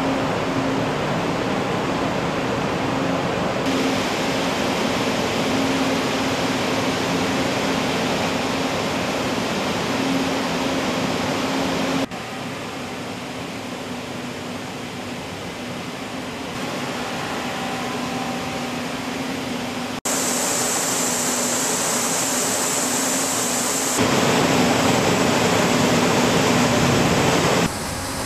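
Steady machinery and air noise aboard a ship, with a low steady hum, its character changing abruptly several times, about 12, 20 and 24 seconds in.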